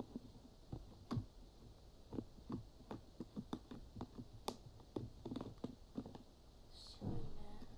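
Stiffened homemade slime being squeezed and pulled apart by hand, giving irregular small clicks and pops as the hardened slime tears. A brief louder sound comes near the end.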